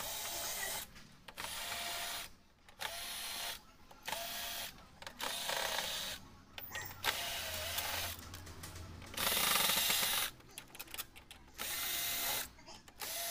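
Masan 12 V cordless drill-driver running in short bursts of about a second each, eight or so times, on the screws of an LCD TV panel's metal frame. Each run is a steady motor whine, with brief pauses as the bit moves from screw to screw.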